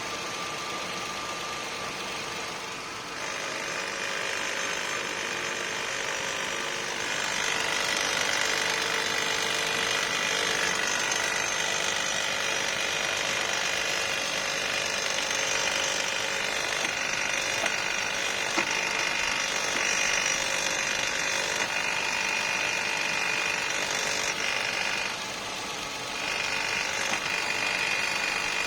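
Toyota 4Runner's 1GR-FE 4.0-litre V6 engine running with a steady mechanical whine and rattle that the owner finds strange and wants troubleshot. It grows louder about three and seven seconds in and dips briefly near the end.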